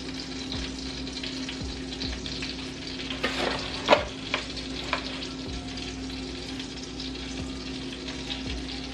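Melted butter sizzling in a pan as flour is stirred in to start a roux for a cheese sauce. A few short utensil clicks or scrapes against the pan come around four seconds in.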